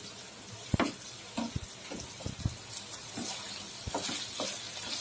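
Spatula stirring and scraping cooked potato cubes in a nonstick frying pan, with scattered knocks against the pan over a faint sizzle.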